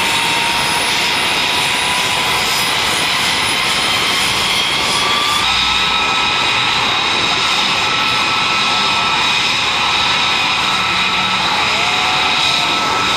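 F-22 Raptor's twin turbofan engines running on the ground, a steady loud rush with a high-pitched whine of several tones; the whine steps slightly up in pitch about five seconds in.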